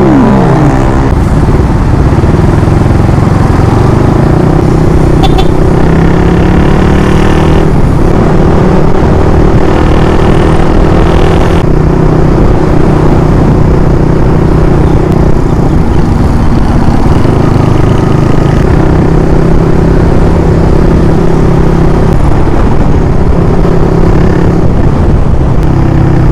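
Motorcycle engine running steadily while riding, a constant drone that shifts pitch a few times as the throttle changes, over rushing wind noise.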